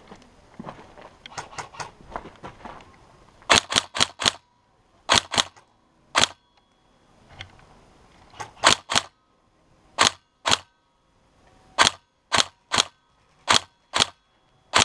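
Airsoft rifle fired in single shots: sharp, loud cracks in quick groups of two to four, with pauses of about a second between groups, about eighteen shots in all. Before the shooting starts there are faint rustling and shuffling sounds.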